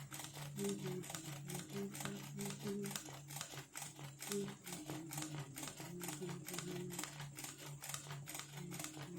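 Lateral-swing embroidery sewing machine stitching at speed: a rapid, even clicking of needle strokes, with a low hum underneath that shifts in pitch.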